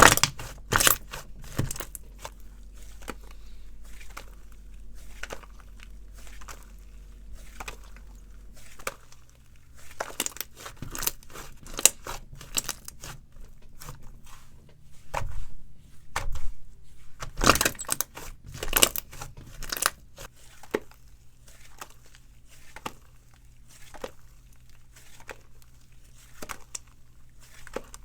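Slime being squeezed and worked by hand, giving irregular sticky crackles and clicking pops that come in thicker clusters twice, about a third of the way in and again past the middle, over a faint low hum.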